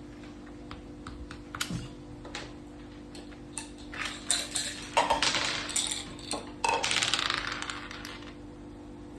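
Mak saka (Thai backgammon) pieces and dice clacking: scattered sharp clicks, then two dense rattles of about a second each in the second half.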